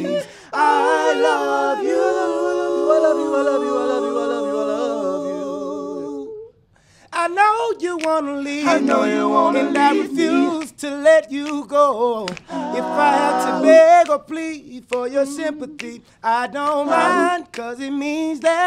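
Male a cappella vocal group singing in close harmony: a long held chord that cuts off about six seconds in, then, after a short break, a quicker, rhythmic passage of voices.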